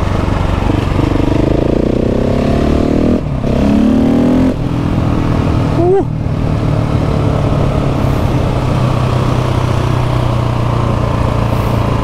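KTM 690 SMC R single-cylinder supermoto engine pulling up through the revs, with a short break for a gear change about three seconds in and a second climb, then running steadily on the road with a brief rev near the middle.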